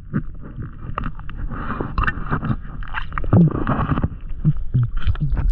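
Underwater sound through an action camera's waterproof housing: a low rumble and bubbling hiss of water moving past, with many irregular clicks and knocks.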